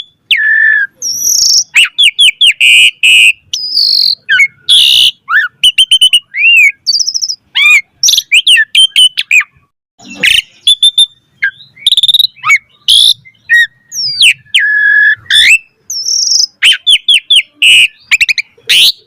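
Asian pied starling (jalak suren) singing in full voice: a fast, varied stream of whistles, up-and-down glides and rapid chattering note series, with a brief pause about ten seconds in.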